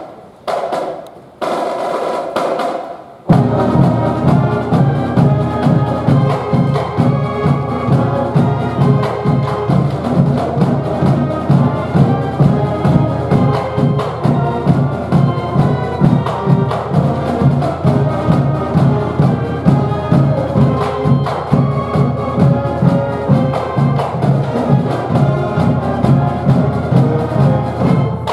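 Music with a strong, steady drum beat. It opens with a few short separate hits in the first three seconds, then runs as a continuous driving piece.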